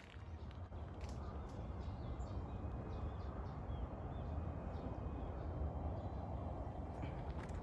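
Faint, short bird chirps over a steady low rumble of outdoor background noise.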